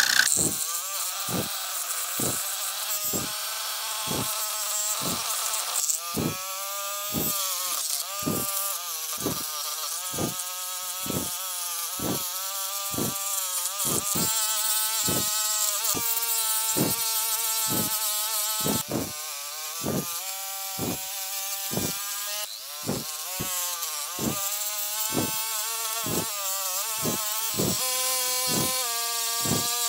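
Homemade scroll saw running and cutting a pine board along a traced curve: a steady buzzing whine whose pitch wavers as the feed loads the blade, with a low knock repeating a little faster than once a second.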